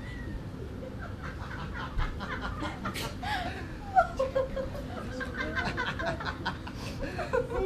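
Soft snickering and chuckling laughter, starting about a second in, with a sharp click about three seconds in.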